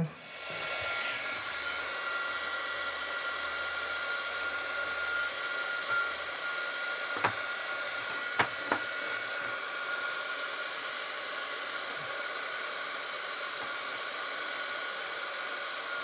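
Small handheld heat gun running steadily, its fan blowing with a thin steady whine, as it shrinks heat-shrink labels onto a cable. Three sharp clicks come about halfway through.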